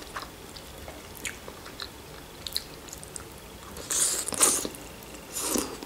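Close-up eating sounds: a person slurping in a forkful of slippery starch noodles about four seconds in, with small mouth clicks and chewing around it and another short mouth sound near the end.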